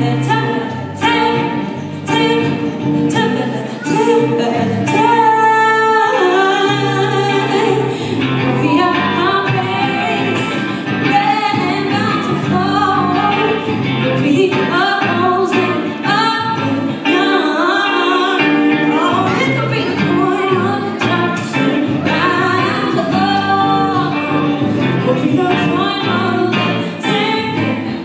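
A woman singing live with sliding, ornamented runs, accompanying herself on a semi-hollow electric guitar played through an amplifier.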